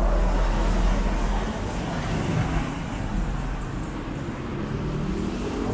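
Street traffic: motor vehicles running close by with a low engine rumble, loudest in the first second or so and then easing as they move off.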